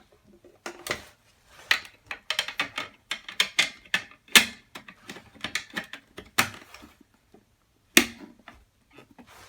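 Irregular clicks and clacks of a ventilation fan's filter and cover being handled, with no fan motor running. The clicks come thickest in the middle, with single louder knocks about a second in and near the end.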